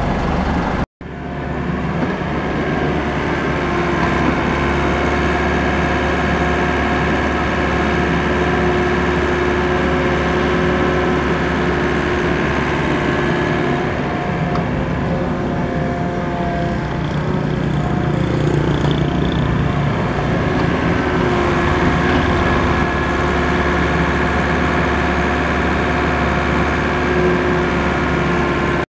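Diesel engines of a Volvo EW55 wheeled mini excavator and nearby dump trucks running steadily while the excavator digs and loads, with a sudden brief gap about a second in.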